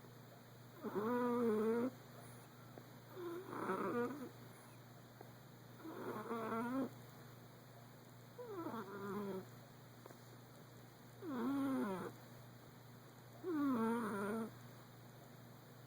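Persian cat snoring in its sleep: six pitched, wavering snores, each about a second long, coming about every two and a half seconds.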